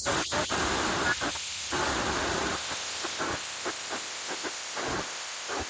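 Floodwater rushing along a street in heavy rain: a steady, noisy hiss with uneven surges.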